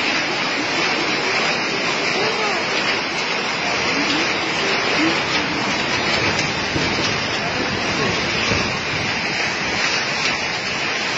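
Hail and heavy rain pelting concrete pavement in a dense, steady hiss.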